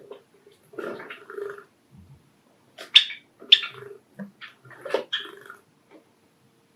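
Java sparrows calling with short, sharp chirps and softer clucks, the two loudest calls about half a second apart near the middle.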